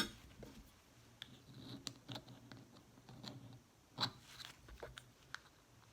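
Faint, scattered clicks and taps from small plastic nail-kit pieces being handled, with a sharper click at the start and another about four seconds in.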